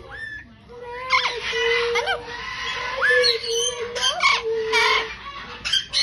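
Caged parrots calling: a busy mix of chirps, squawks and sharp rising and falling whistles starting about a second in and running until near the end, over a wavering held note.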